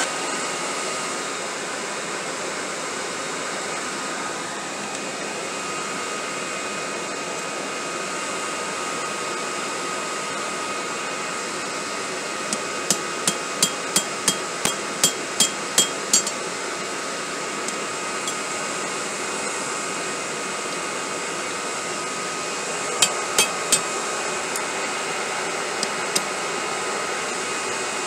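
Electric leaf blower running steadily as it forces air into a forge. Over it, a hand hammer rings on hot steel tongs on an anvil: a run of about ten blows, about three a second, near the middle, then three more quick blows later.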